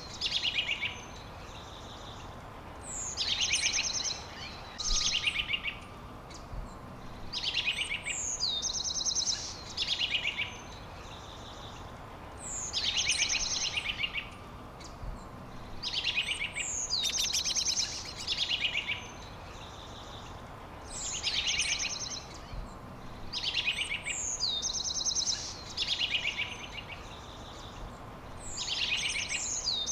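A songbird singing the same short phrase over and over, about every four to five seconds: a quick falling whistle followed by fast, high trills. The singing sits over a steady background hiss.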